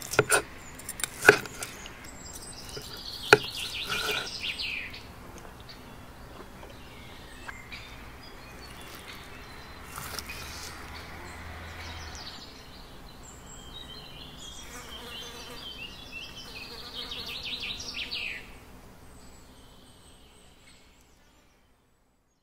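A few sharp clicks of a fork and knife against the steak and the wooden cutting board in the first few seconds. High, buzzing trills come twice, over a quiet outdoor background.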